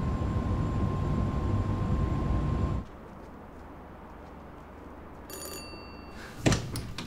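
Train cabin rumble with a faint steady whine, cutting off about three seconds in. About five seconds in an electronic doorbell rings briefly, with several high tones held for half a second. A loud sharp thump follows about a second later.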